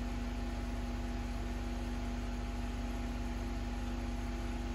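Steady electric hum and buzz of a running appliance: a low drone with a few fixed tones above it and a fine, rapid pulsing, unchanging throughout.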